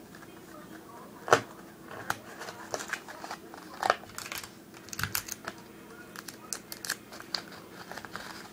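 Paper rustling and crinkling as a sheet is rolled and taped into a tight tube, with scattered small clicks and crackles and two sharper snaps, about a second and four seconds in.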